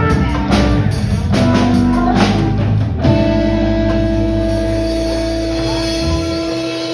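Live band of electric guitars and drum kit playing, with drum hits up to about three seconds in. Then a held chord rings out, its low bass dropping away near the end as it slowly fades, like the closing chord of the song.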